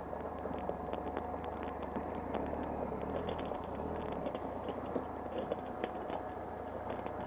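A 2015 Triumph Explorer XC's three-cylinder engine running steadily, heard from a helmet camera, with many small clicks and knocks as the bike rolls over a rough track.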